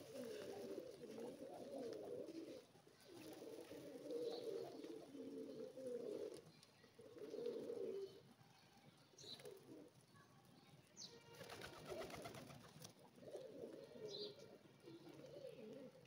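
Feral rock pigeons cooing in a flock: faint, low warbling coos in bouts of a second or two, with short gaps between.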